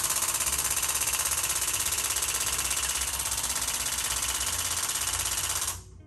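Handheld electric chiropractic adjusting instrument firing a loud, rapid stream of taps into the neck joints. It cuts off near the end. The chiropractor says these joints were locked up and kept the patient from looking up.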